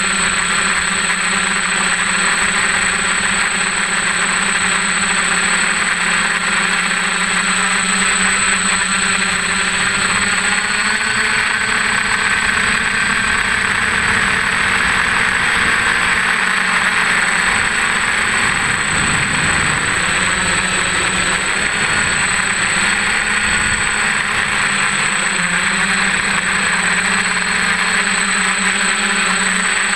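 DJI F550 hexacopter's six brushless motors and propellers whining steadily in flight, the pitch drifting up and down a little with throttle, heard from a camera on the frame. A thin, steady high tone sits above it throughout.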